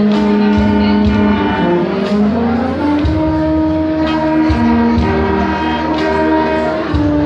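Instrumental ensemble music: held notes changing every second or so over repeated low bass pulses.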